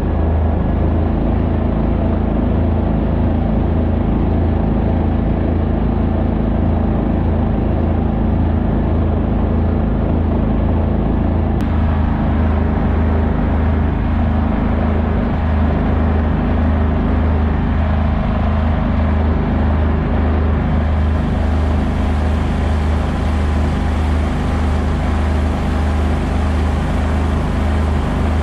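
A 37 HP mud motor pushing a 17-foot aluminum flat-bottom boat, running steadily at a cruising speed of about 12 to 15 mph, with a low, even drone. A brighter rushing hiss grows louder about 20 seconds in.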